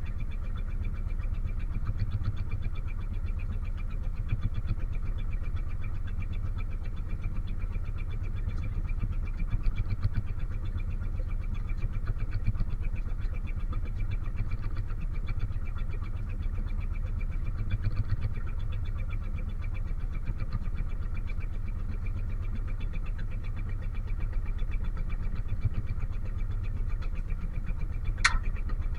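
A fishing boat's engine running steadily with a fine, even pulse. Near the end a single short squeak falls quickly in pitch.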